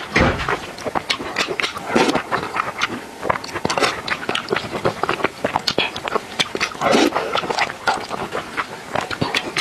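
Close-miked wet chewing and lip-smacking of a mouthful of rice mixed with egg and tomato soup, a quick irregular run of small smacks and clicks.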